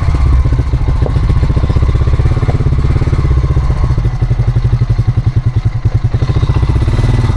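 ATV (quad) engine running close up while riding, its firing pulses steady and loud, with the beat swinging more deeply in loudness about four seconds in.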